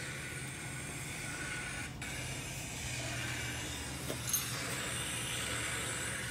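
Small-block Chevy V8 running steadily on an engine stand, with a steady hiss over the engine note. It has no cooling system connected.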